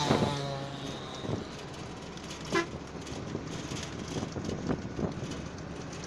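Bus travelling along a road, its engine and road noise steady through the window seat. A vehicle horn toots briefly at the start, and another short, sharper sound comes about two and a half seconds in.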